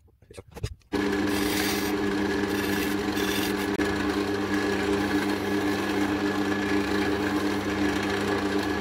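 Wood lathe running with a steady motor hum while a turning tool scrapes and cuts the spinning oak handle down to size. It starts about a second in after a brief quiet.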